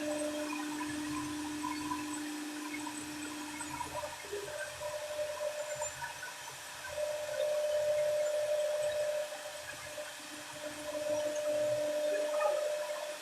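CNC router spindle running with a steady whine over machining noise, growing louder about halfway through.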